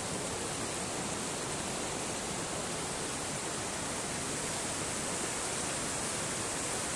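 Fast glacial river rushing over rocks in white-water rapids, a steady unbroken noise of churning water.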